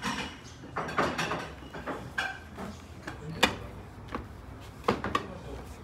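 Scattered light knocks and clinks of tableware being handled and set down, with a few sharper clacks, the strongest about three and a half seconds in and just before five seconds.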